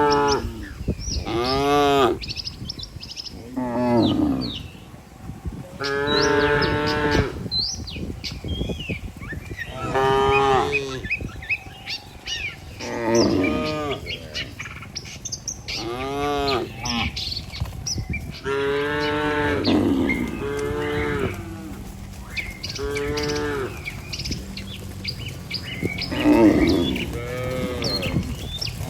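Cattle mooing over and over, one drawn-out call every two to three seconds from several animals, with faint bird chirps between the calls.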